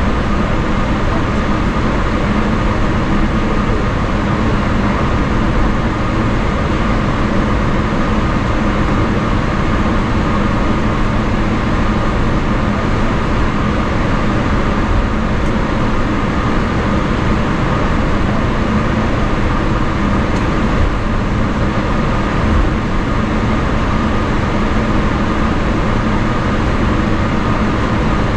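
Cabin noise of a Boeing 777-300ER taxiing, heard from a window seat beside the wing: its GE90-115B engines at taxi power give a steady hum with a higher whine over a constant rumble of the aircraft rolling on the taxiway.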